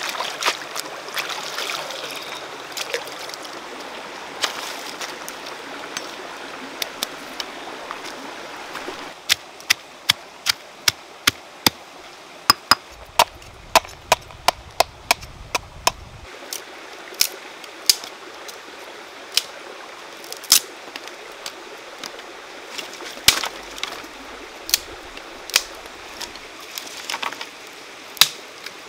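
Stream water running and splashing as banana-stem pieces are rinsed in a bamboo basket. About nine seconds in, a knife starts chopping on a wooden board at about two to three strokes a second, thinning to scattered chops, with the stream running underneath.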